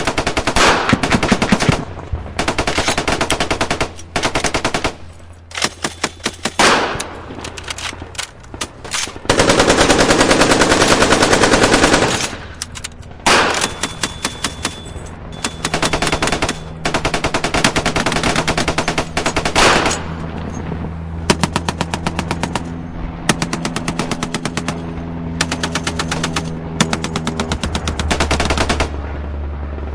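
Automatic gunfire in repeated rapid bursts separated by short pauses, with one longer unbroken burst about ten seconds in. A low steady hum runs underneath.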